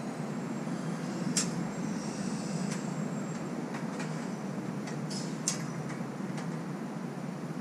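A few sharp metallic clinks and taps, the loudest about one and a half and five and a half seconds in, from the surrey's metal canopy frame tubes being handled and fitted together, over a steady low background rumble.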